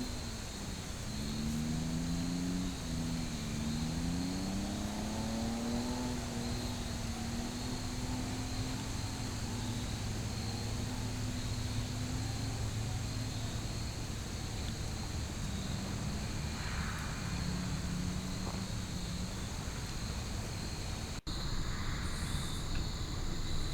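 A distant engine drones, its pitch gliding up and down as it passes, like a vehicle on a road. It fades after about 12 seconds and comes back briefly later, over a steady high-pitched background hum.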